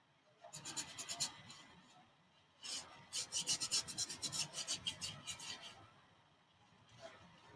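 Paintbrush scrubbing oil paint onto a canvas on an easel in quick back-and-forth strokes: a short run of rasping strokes, then a longer run of several strokes a second.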